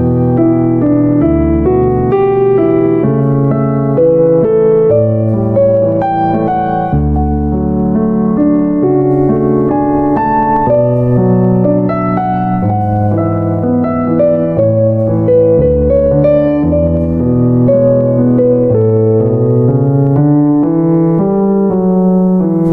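Background piano music: a steady stream of notes over a moving bass line.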